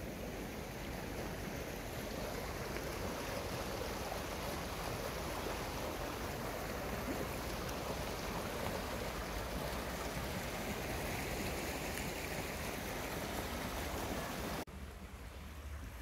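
Steady rush of stream water pouring over a low weir. Near the end it cuts off abruptly to a quieter low rumble.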